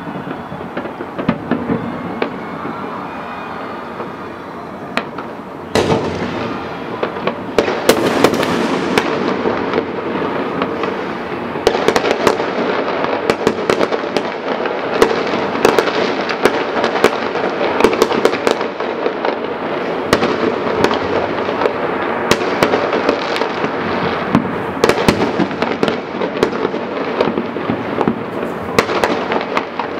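Large fireworks display: after a quieter opening, a sharp barrage begins about six seconds in and becomes a dense, continuous run of bangs and crackles. Heavier surges come about twelve seconds in and twice more near the end.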